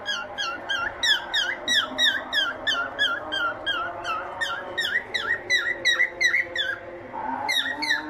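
Cockatiel calling in a quick run of repeated chirps, each dipping and then rising in pitch, about three or four a second, with a short break near the end before it starts again.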